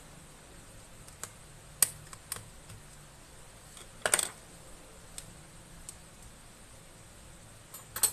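Scattered small clicks and taps as a screwdriver and fingers work on the parts of an opened MacBook Pro, with a short clatter of clicks about four seconds in and another near the end.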